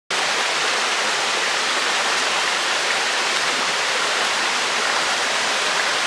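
A rocky stream rushing steadily over stones, a constant, even sound of running water.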